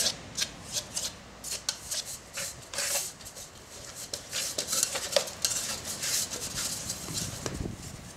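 Flour and water being worked by hand into dough in a small metal pot: quick, irregular scraping and scratching against the pot's sides and bottom, busier in the second half.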